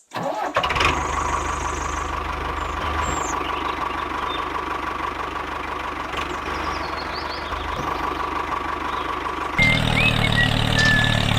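A small engine running steadily, with a low pulsing beat and a constant whine. About three-quarters of the way through, its sound changes to a louder, deeper run.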